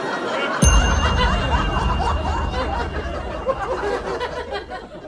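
Audience chatter and laughter, many voices overlapping. About half a second in, a deep hum with faint steady high tones starts suddenly, and the whole mix fades out near the end.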